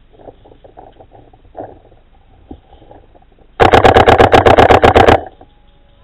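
Paintball marker firing a rapid burst of about fifteen shots, roughly ten a second, for about a second and a half, starting a few seconds in and stopping sharply.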